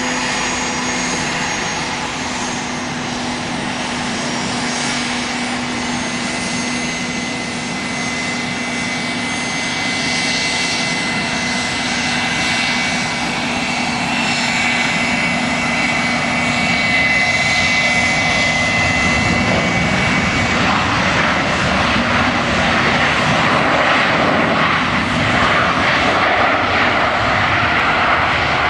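Boeing 737-800 airliner's jet engines on final approach and landing: a steady whine over a low hum, then after touchdown a louder rushing noise for the last ten seconds as the plane slows on the runway.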